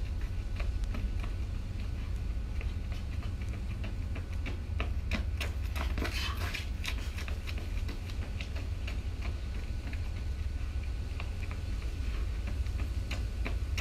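Running footsteps of shoes on concrete, a quick patter of light slaps that grows louder about six seconds in and again near the end as the runner passes close, over a steady low wind rumble on the microphone.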